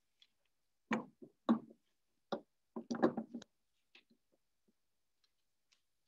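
Wooden knocks and clacks from the back of a large-format wooden view camera being handled, its framed back and plate holder lifted and fitted: several sharp knocks between about one and three and a half seconds in, then a few faint ticks.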